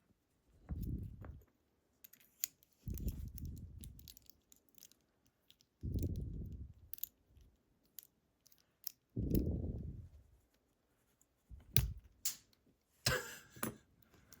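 Small metal lock parts and tools handled on a bench while a lock is taken apart: scattered light clicks, a few dull handling thumps, and a short scraping rattle near the end.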